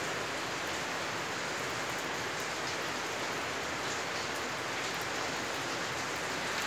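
Steady, rain-like patter of water dripping through the timber formwork under a concrete slab that has been wetted from above.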